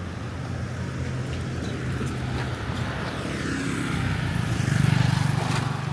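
A motor vehicle's engine going by close on a street, a low hum that grows louder to a peak about five seconds in and then drops away, over steady traffic noise.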